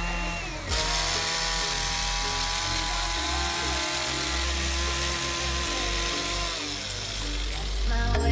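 Background music: sustained held tones over a low bass line, changing chord about a second in and again near the end.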